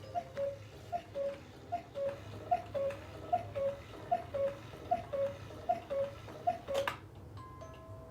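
Cuckoo clock calling the hour: a falling two-note cuckoo call repeated nine times, about one every 0.8 s, ending with a sharp click.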